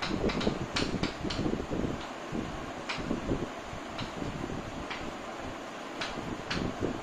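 Chalk writing on a chalkboard: scratchy strokes with irregular sharp taps as the chalk strikes the board, about a dozen taps in all.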